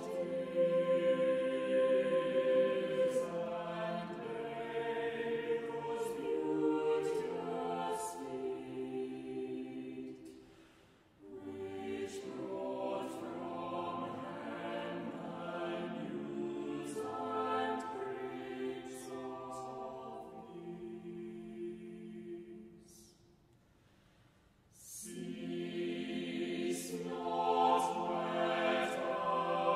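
A choir singing a hymn in long, held phrases, breaking off twice for a short pause: once about a third of the way in and again a little past two thirds.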